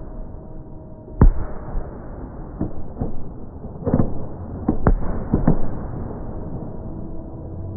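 Fireworks going off: one loud bang about a second in, then a quicker run of smaller bangs and crackling pops a few seconds later.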